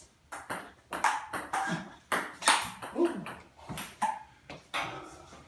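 A ping pong rally: the ball clicks back and forth off paddles and table in a quick run of sharp taps. Short, silly, wordless vocal noises mix in with the hits.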